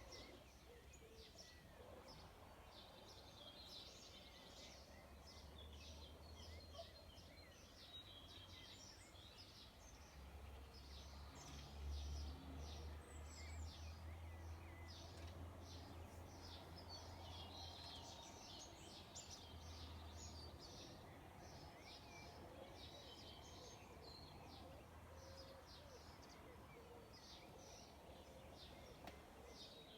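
Faint outdoor birdsong: many small birds giving quick, high chirps and twitters throughout, over a low steady rumble that grows louder in the middle.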